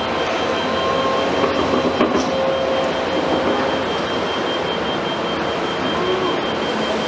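Komatsu PC210 hydraulic excavator working, its diesel engine and hydraulics running steadily, with a steady high whine and a few faint squeals of metal.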